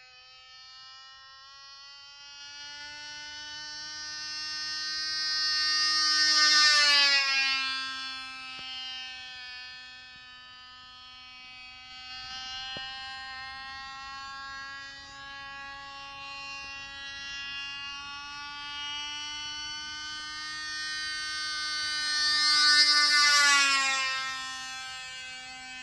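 Cox Baby Bee .049 glow-plug two-stroke engine on a radio-controlled Curtiss Hawk 75 model plane, running at a steady high-pitched buzz. The plane makes two passes, about seven seconds in and again near the end, each swelling to its loudest and dropping in pitch as it goes by.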